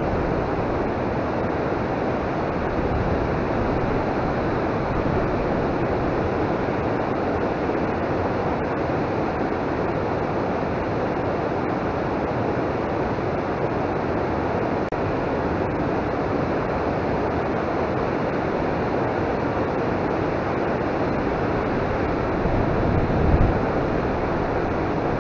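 Flowing river water rushing steadily, with a short louder bump near the end.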